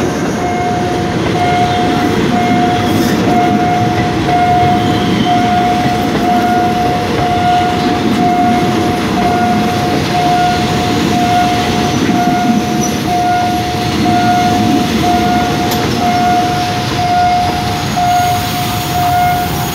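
Passenger carriages of a diesel-hauled suburban train rolling past a level crossing, with a steady rumble of wheels on the rails. Over it the crossing's warning alarm sounds a repeated tone, about once a second.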